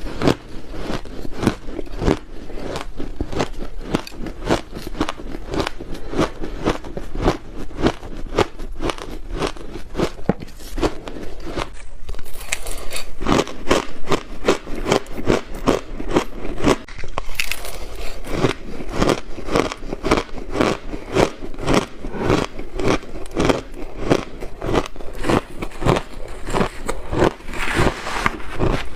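Frozen blended powder ice being chewed, a steady run of crunches at a few a second, broken twice by brief pauses.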